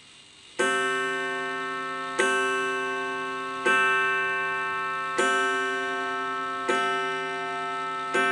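Large old clock striking the hour on its gong: six evenly spaced strikes about one and a half seconds apart, each ringing on and slowly dying away before the next.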